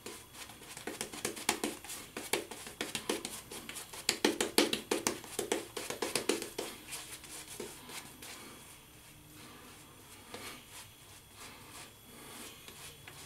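Shaving brush working lather onto a stubbled face in quick, rapid strokes. The strokes are busiest in the first seven seconds, then thin out and grow fainter.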